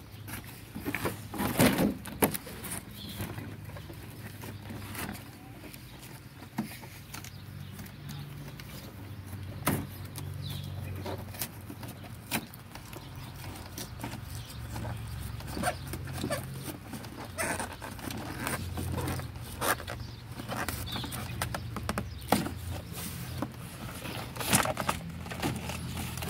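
A cardboard toy box being handled and pried open: scattered crinkles, taps and knocks of cardboard and plastic packaging, over a low steady hum.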